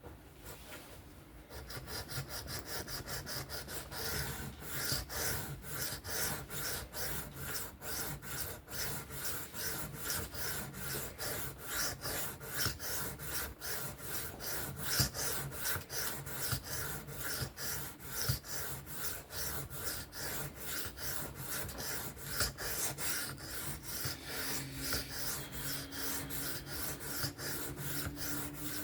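A 3V steel knife blade being sharpened freehand on a sharpening stone: a long run of quick, even rasping strokes as the edge is pushed and pulled across the stone, starting about a second and a half in.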